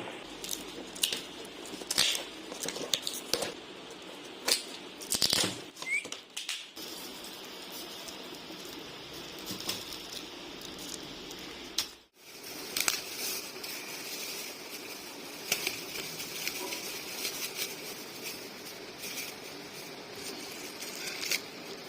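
Handling of packaging during an unboxing: scattered light clicks and short rustles over a low, steady room hiss.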